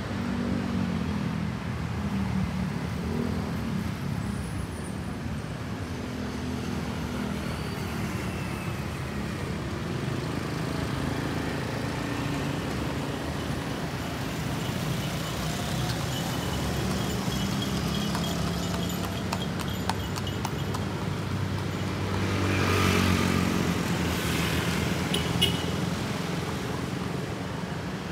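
Street traffic passing: the steady hum of motor vehicles, with scattered clicks. One vehicle passes close, loudest about 23 seconds in.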